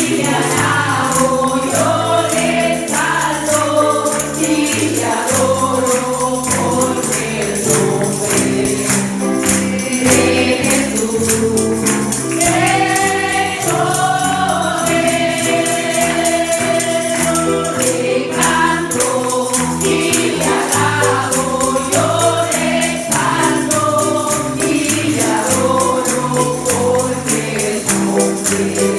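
Congregational worship music: a group singing a gospel hymn in Spanish over a live band with bass and a steady tambourine rhythm.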